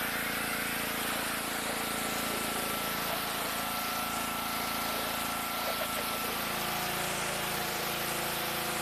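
Pressure washer running: a steady engine hum under the hiss of the water spray, its pitch dipping slightly near the end.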